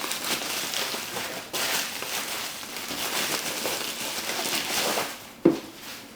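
Bubble wrap being pulled and unwrapped from a cardboard box, crinkling and rustling. There is a short pause about one and a half seconds in, and a single knock near the end.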